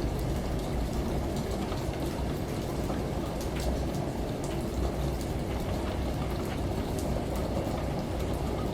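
Steady rain with scattered drops ticking, layered over a washing machine's steady low hum.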